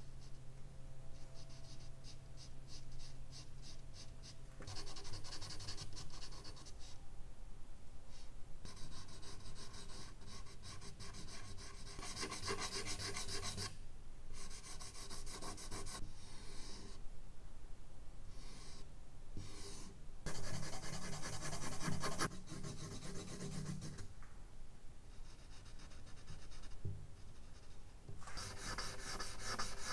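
Charcoal scratching across medium-surface drawing paper in quick repeated strokes. The strokes come in bursts of a few seconds, with short pauses between them.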